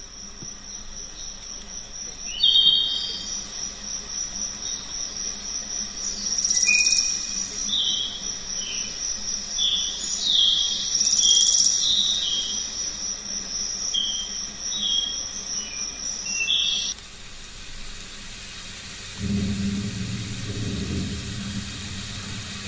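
Nature sound effect: a steady, pulsing high insect trill with birds chirping over it, cutting off suddenly; a couple of seconds later a low rumble begins.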